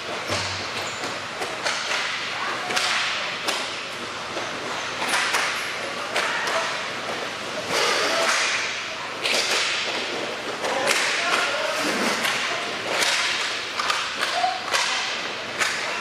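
Hockey game play echoing in a large rink: sticks clacking and the puck being struck again and again, with skates scraping and occasional brief shouts from the players.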